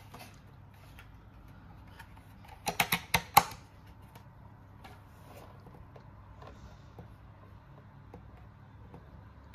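Small toy pieces being handled, giving faint scattered clicks and taps, with a quick run of about five sharp clicks roughly three seconds in.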